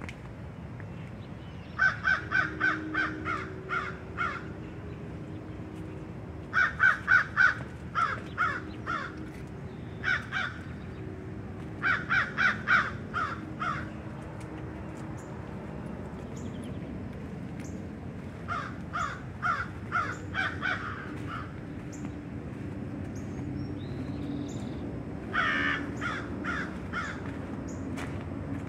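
Crow cawing in bouts of several quick caws, the bouts repeating every few seconds.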